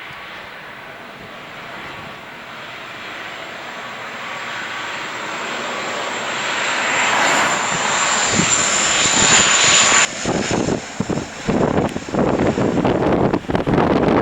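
Dash-8 Q400's turboprop engines growing steadily louder with a high propeller whine as the aircraft passes. About ten seconds in the engine sound cuts off suddenly, leaving gusty wind buffeting the microphone.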